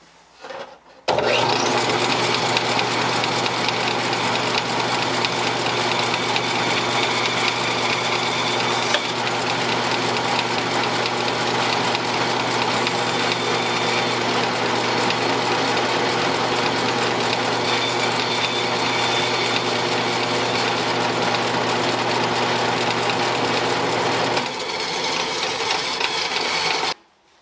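A motor running loudly at a steady, unchanging speed. It starts abruptly about a second in, drops a little in level near the end and then cuts off.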